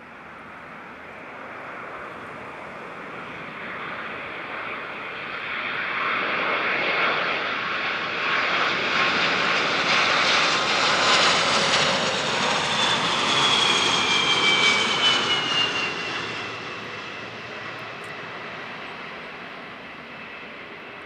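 A Boeing 747-400's four Rolls-Royce RB211 turbofan engines roar as the airliner comes in on approach to land, growing steadily louder as it nears. In the middle a high whine from the engines drops in pitch as the jet passes by, and then the roar fades.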